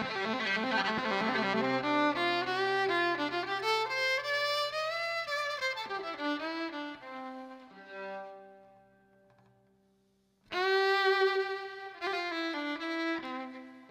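Solo violin being bowed. The first phrase is dense and layered, with sustained low notes under a sliding melody, and it fades away about eight seconds in. After a short silence, a loud new phrase starts sharply about ten and a half seconds in.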